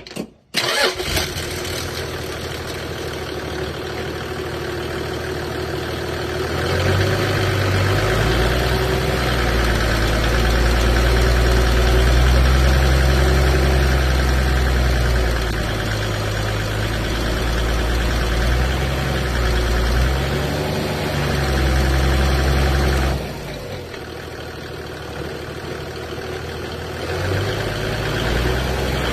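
Toyota HDJ80's 1HD-T turbo-diesel straight-six running in gear with the wheels off the ground, revved to about 1400–1600 rpm and held against the brakes to load it, to bring out a knock the owner has not traced. It gets louder and deeper about a quarter of the way in, eases off about three-quarters in, and rises again near the end. The knock is still there after a new clutch kit and gearbox, and the owner suspects crank flex.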